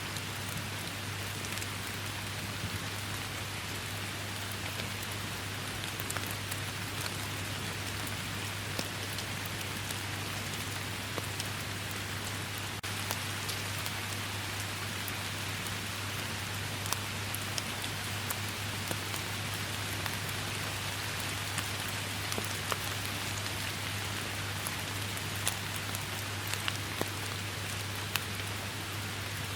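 Steady rain falling, with many individual drops ticking sharply over the even hiss, and a steady low hum underneath.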